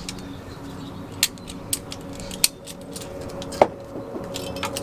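Ratchet strap being worked to release its tension: sharp metallic clicks, about five at irregular intervals, over a steady low hum.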